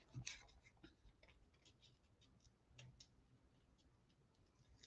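Near silence, with a few faint clicks and taps from paper and stationery being handled on a desk.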